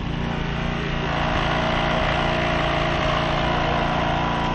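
Small petrol engine of a hydraulic rescue-tool power unit running steadily during a car extrication, with a higher steady whine joining about a second in.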